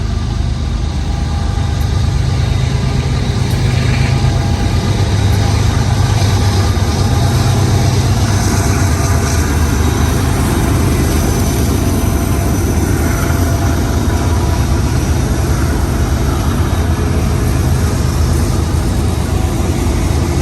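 BNSF intermodal freight train passing, its diesel locomotive engines running with a steady low hum over the noise of the cars rolling on the rails.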